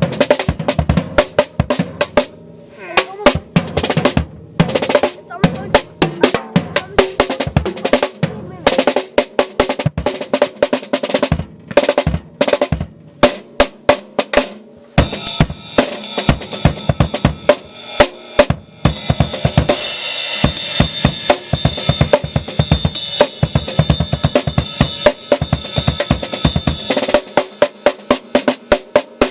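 Acoustic drum kit played solo: quick snare fills and rolls with bass drum, broken by short gaps. About halfway through, cymbals start ringing out over a steady beat.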